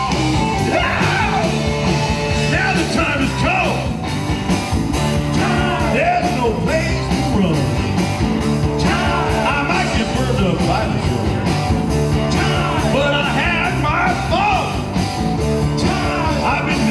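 Live rock band playing through a PA: drums, bass and electric guitars, with a lead line sliding up and down in pitch every few seconds.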